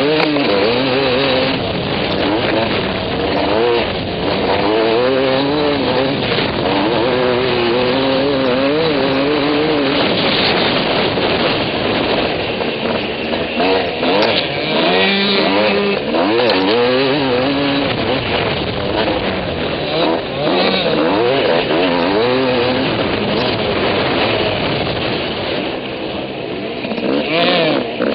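Suzuki RM250 single-cylinder two-stroke motocross engine under riding load, revving up and dropping back again and again as the rider works the throttle and gears around the dirt track.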